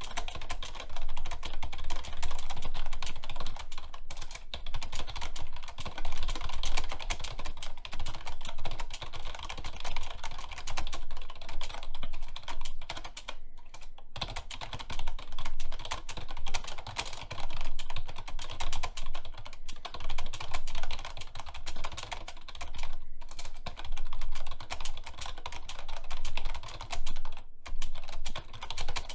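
Fast, continuous typing on a computer keyboard during a speed-typing test: a dense stream of keystrokes, about ten a second, with a few brief pauses between bursts.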